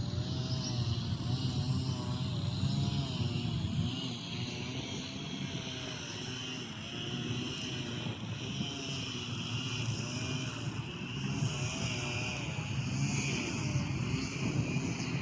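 A steady engine drone with a faint high whine that falls slowly in pitch.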